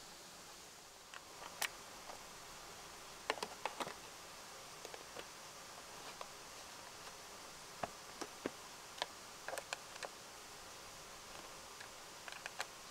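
Scattered light clicks and ticks of an Allen key and small screws being worked by hand while refitting a Honda CB500F's plastic side fairing panel, over a faint steady hiss.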